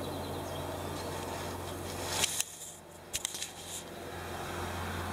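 Steady low background hum, broken by a few sharp clicks a little over two seconds in and again about three seconds in, where the level briefly drops.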